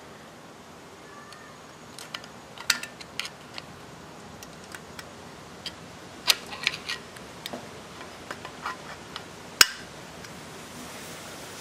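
Irregular light metallic clicks and taps as a screwdriver levers a Briggs & Stratton valve spring to fit the valve's retaining pin, the sharpest click about nine and a half seconds in.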